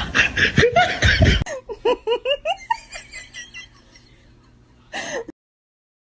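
Human laughter: a loud burst of laughing, then a run of short, rising giggles that fade away, and one last brief laugh about five seconds in before the sound cuts off.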